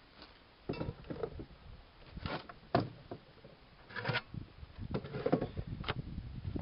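Metal vise parts being handled and fitted: a series of short knocks, clinks and brief scrapes, over wind rumble on the microphone.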